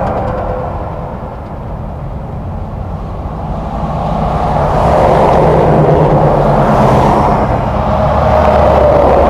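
Steady motor-vehicle noise with a low engine drone, dipping early on and then swelling up again about halfway through, as a vehicle passing would.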